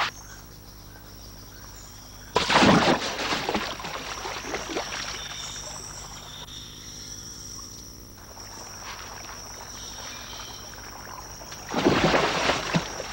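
Iguanas dropping from overhanging branches into a river: a loud splash about two seconds in, then water sloshing and washing that slowly fades, and a second heavy splash near the end.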